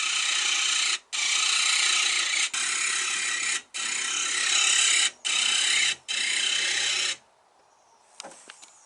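Harsh rasping, grating mechanical noise in strokes of about a second, broken by short gaps, stopping about seven seconds in; a few faint clicks follow.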